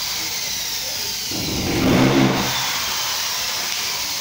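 Corded electric drill running steadily, with a louder, lower burst about a second and a half in.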